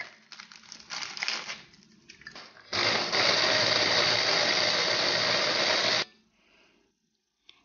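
Digestive biscuits clicking as they drop into a plastic chopper bowl. About three seconds in, the hand blender's chopper attachment runs steadily for about three seconds, grinding the biscuits to crumbs, then stops abruptly.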